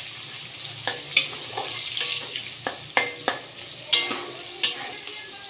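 Chopped onions sizzling as they fry in ghee and oil in a kadai, with a spatula stirring and knocking sharply against the pan several times.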